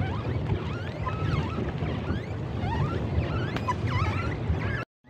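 Wind rumbling on the microphone out on an open lake, with many short high chirps and whistles scattered over it. The sound cuts out for a moment near the end.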